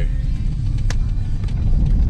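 Car road noise heard from inside the cabin: a steady low rumble while driving, with one short sharp tick about a second in.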